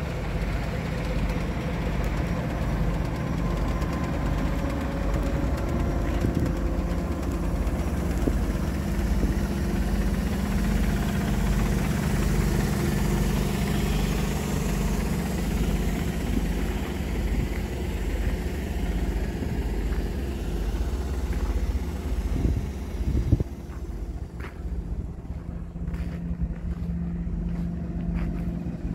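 Natural-gas engine of a Mercedes-Benz Econic 2628G sludge and vacuum truck running steadily at idle, with a steady hiss over it that fades away near the end and a few short knocks just before.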